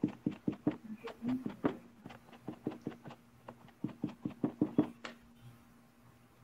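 A dry sponge dabbed quickly over wet paint on a stretched canvas to blend it: a run of soft taps, about four or five a second, that stops shortly before the end.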